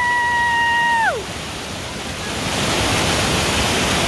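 Waterfall rushing steadily. Over it, a long high-pitched cry held on one note falls away in pitch and stops about a second in.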